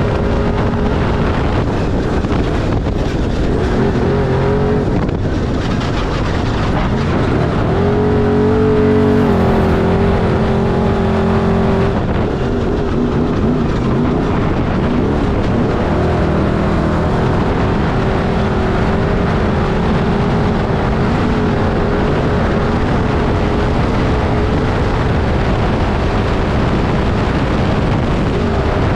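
Off-road race vehicle's engine running hard at high revs under a rumble of noise, holding a steady pitch that dips and jumps a few times as the throttle changes.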